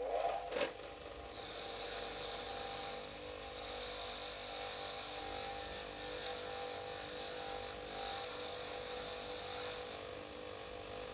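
A small electric power tool running steadily against the wrench's metal, its motor hum under a continuous abrading hiss.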